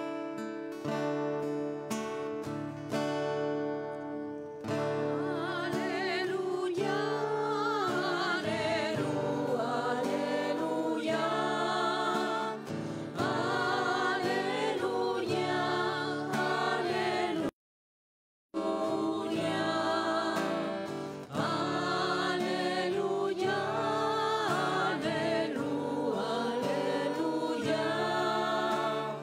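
Church choir singing the Gospel acclamation with guitar accompaniment, the instruments playing alone for the first few seconds before the voices come in. The sound cuts out completely for about a second midway.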